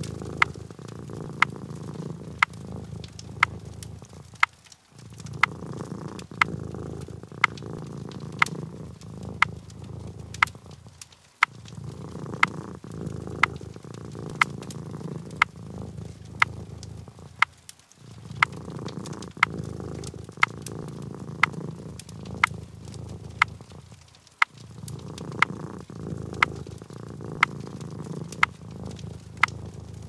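A cat purring, a low continuous rumble that breaks off briefly about every six seconds. Over it come the sharp, irregular crackles and pops of a wood fire, about one or two a second.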